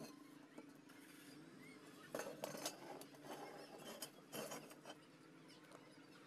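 Lengths of aluminium channel strip clinking and knocking against each other and the wooden workbench as they are handled: a cluster of sharp knocks a couple of seconds in and another about four seconds in, over a faint steady hum.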